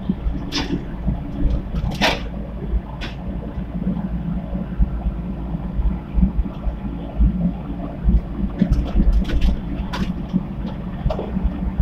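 Komatsu PC75 mini excavator's diesel engine running steadily, with a few sharp knocks during the work.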